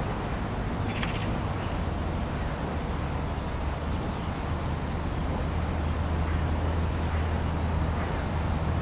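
Steady low rumble of distant machinery or traffic, with a few faint high bird chirps over it.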